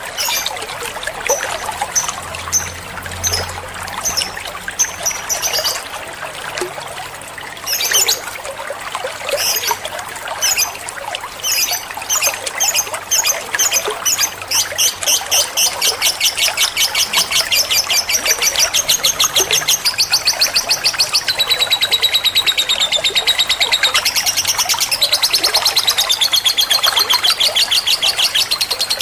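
Lovebird song: sharp, separate high chirps at first, then from about halfway a long, very fast chattering trill (the 'ngekek' prized in lovebirds) that goes on to the end.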